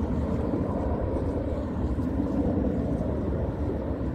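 Jet aircraft flying past: a steady low rumble with no rise or fall.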